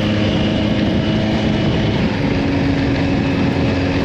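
1983 Kawasaki GPZ1100's inline-four engine running at road speed under a steady rush of wind. The engine note steps up to a higher pitch about halfway through.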